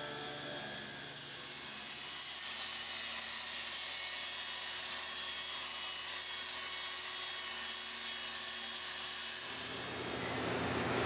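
A machine polisher running steadily on car paint during paint correction, a steady whine that grows louder and fuller near the end.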